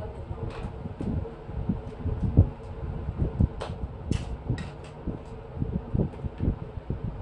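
Handling noise from a plastic two-wheeled stunt RC car: irregular knocks, thumps and sharp clicks as its battery is fitted and the toy is set down on the floor and handled. A steady low hum runs underneath.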